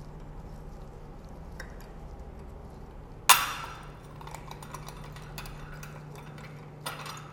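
Chrome urinal flush-valve fittings being worked loose by hand: a single sharp metallic clink with a short ring about three seconds in, then light clicks and taps of metal on metal and porcelain, with a smaller clink near the end.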